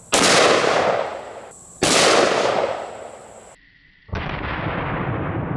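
Two shots from a Magnum Research Desert Eagle pistol chambered in .429 DE, about a second and a half apart, each ringing out afterwards. About four seconds in, a steady low rumble starts and keeps going.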